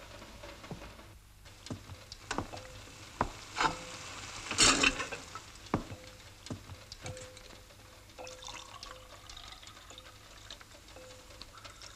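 Kitchen sounds of making tea: knocks and clinks of crockery and a kettle being handled, a short loud rush of water from the tap about four and a half seconds in, and later water running into the kettle, rising slightly in pitch as it fills.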